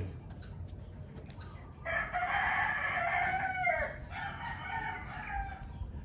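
A rooster crowing once: a long pitched call starting about two seconds in, bending down at its end and trailing off.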